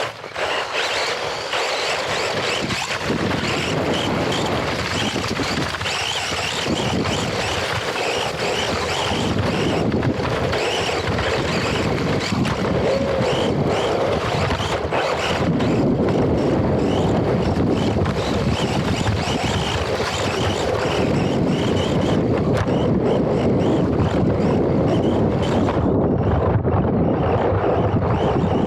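Wind buffeting the microphone of a small action camera riding on an RC car, with the rumble of the car running over dirt. The noise builds up in the first second and then runs on steadily.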